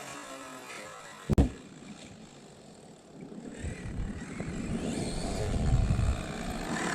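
Electric whine of a Traxxas X-Maxx RC monster truck's 1100kv Hobbywing brushless motor and drivetrain: it falls in pitch and fades early on, there is a sharp knock a little over a second in, and then the whine rises and grows louder again as the truck speeds up.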